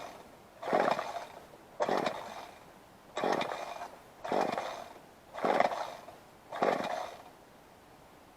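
Kawasaki KTF27A two-stroke string trimmer being pull-started: the recoil starter rope is yanked about seven times, roughly a second apart, each pull a short loud burst, and the engine does not fire.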